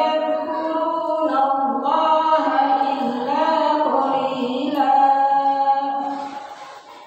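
A woman chanting in long, held melodic phrases that trail off near the end.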